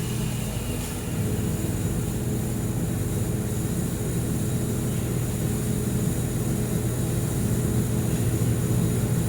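Steady low machine hum with a faint hiss from an air-cooled handheld laser welder running. It gets a little louder about a second in.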